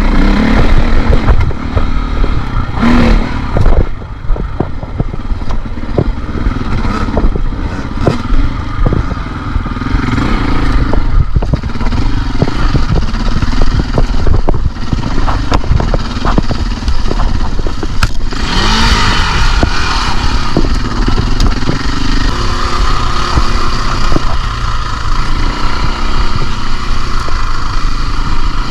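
KTM enduro motorcycle engine running and revving up and down, with frequent knocks and clatter from the bike working over rough ground. A louder rush of noise comes about eighteen seconds in.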